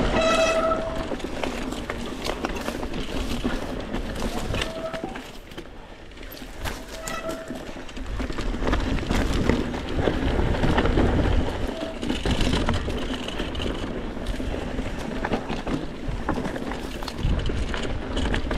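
Mountain bike descending a stony dirt singletrack: the tyres rolling and crunching over loose rock make an uneven rumbling noise that swells and fades. A disc brake squeals in a held high tone right at the start, then in two short squeals about four and a half and seven seconds in.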